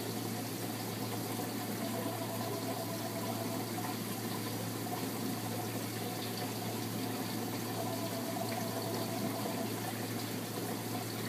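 Steady rush of circulating water with a steady low hum, the sound of a saltwater aquarium's pumps and filtration running.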